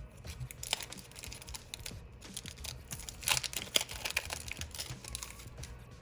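Pokémon trading cards and foil booster pack wrappers being handled: a rapid patter of small clicks and flicks with some crinkling, busiest about half a second in and again around three to four seconds in.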